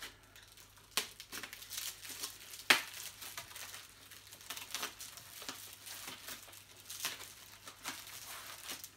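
Packaging wrap crinkling and rustling as it is pulled off the handle of an upright vacuum cleaner, with scattered sharp crackles, the loudest about three seconds in.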